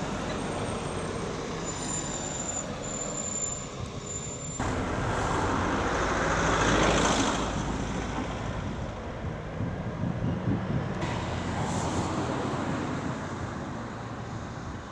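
Street traffic noise, with a vehicle passing close by and swelling to its loudest about halfway through.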